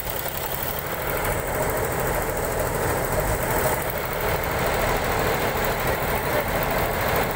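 Combine harvester's diesel engine running steadily close by.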